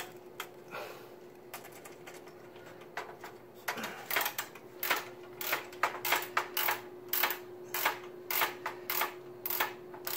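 Screwdriver working a motherboard screw: a few faint clicks, then from about three seconds in a regular run of sharp clicks about two a second.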